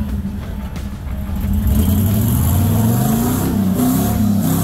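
A 4x4's engine revving up and down under uneven throttle, its pitch rising and falling several times. It gets louder about a second and a half in.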